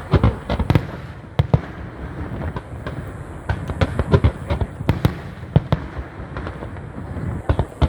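Fireworks display going off: a rapid, uneven run of sharp bangs and crackles, several a second, over a rumbling background.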